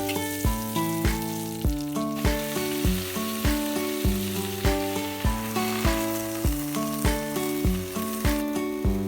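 Food sizzling as it fries in a pan, a steady hiss that is strongest in the first couple of seconds, over background music with a steady beat.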